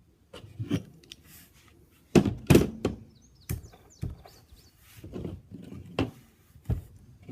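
Steel parts of a field-stripped Sig Sauer 1911 pistol being picked up, handled and knocked against a hard surface: a series of separate clunks and clicks. The loudest come as a pair about two seconds in.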